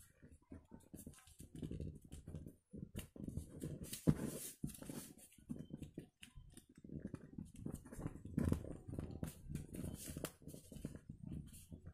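A sheet of coloured paper being folded and its creases pressed down by hand: irregular rustling and rubbing with short sharp crinkles, loudest about four seconds in.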